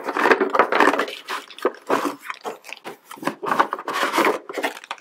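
Cardboard box and plastic-wrapped toy pieces rustling, crinkling and scraping as the contents are shaken and pulled out of the box, in a quick, irregular string of crackles and small knocks.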